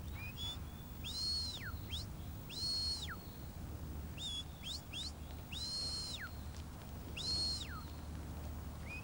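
Shepherd's whistle commands to a working sheepdog: a series of high whistles, four of them long notes that rise in, hold, then slide steeply down, with short quick chirps in between.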